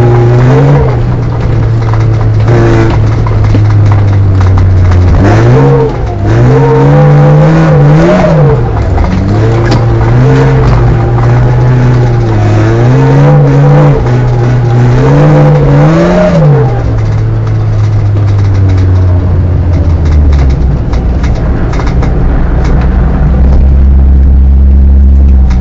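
Polonez Caro's Rover 1.4 K-series four-cylinder engine heard from inside the cabin, running steadily at first, then revved up and down in a series of short surges through the middle, before settling to lower, steady revs for the last few seconds.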